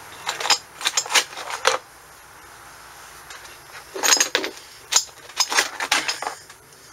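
Steel transaxle gears and parts clinking and clanking together as they are handled, in two bursts of several sharp clinks: one over the first two seconds and another from about four to six seconds in.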